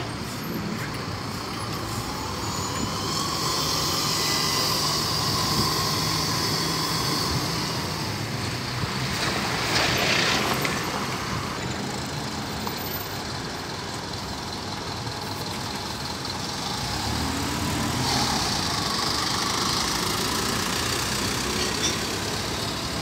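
Two diesel buses pulling out one after the other and passing close by, engines running under load with the pitch rising and falling as they move off. A short burst of air hiss about ten seconds in.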